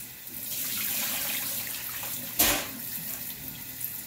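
Rice rinse water pouring from a steel pot and splashing into a stainless steel sink. A single sharp knock about two and a half seconds in is the loudest sound.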